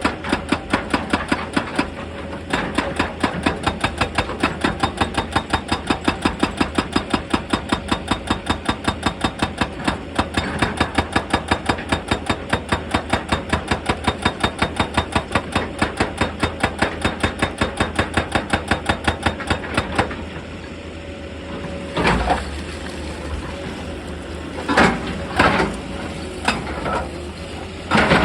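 Excavator-mounted hydraulic breaker hammering rock in a fast, even run of about five blows a second. The hammering stops about twenty seconds in, leaving the excavator's engine running with a few single knocks. It starts again at the very end.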